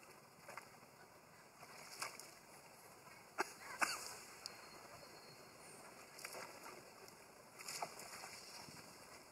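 Long-tailed macaques splashing and wrestling in shallow water: soft sloshing broken by a few sharp slaps and splashes, the loudest about three and a half seconds in.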